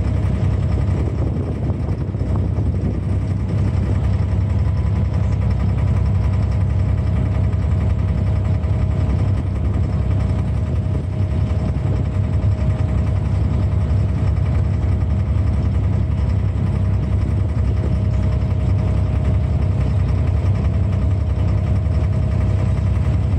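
Diesel engine of a wooden abra water taxi running steadily underway, a loud low drone with a thin steady hum above it.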